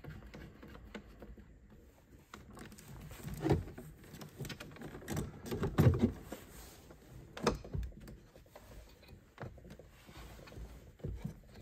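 Handling noise as a 12-inch Lowrance HDS Pro display is lifted and fitted onto its dash mount bracket: scattered plastic knocks and clunks, clustered about five to six seconds in, with the loudest knock near six seconds.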